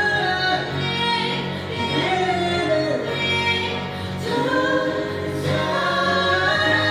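Slow Korean pop ballad performed live as a duet by a female and a male singer, with band accompaniment under the vocals.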